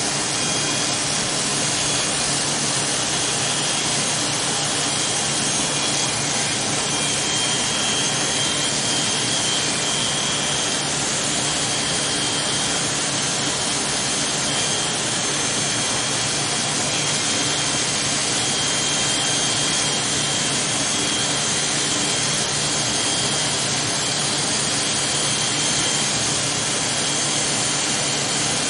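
Corded electric hair clippers running with a steady buzz as they cut short hair close to the scalp.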